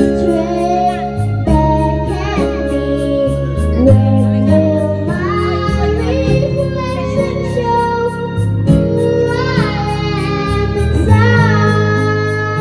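A young girl singing into a karaoke microphone over an instrumental backing track, in several phrases with short gaps between.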